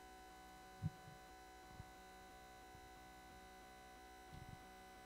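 Near silence with a faint steady electrical hum and one brief low thump about a second in.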